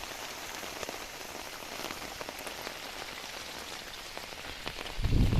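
Rain falling steadily, with many separate drops striking close by. A loud low rumble starts near the end.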